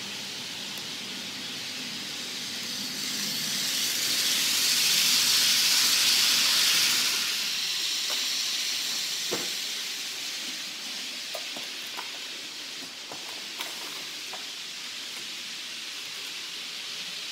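HO-scale model train running past close by: a steady hiss of wheels on track and motor that swells from about three to seven seconds in and then fades, followed by a few faint clicks.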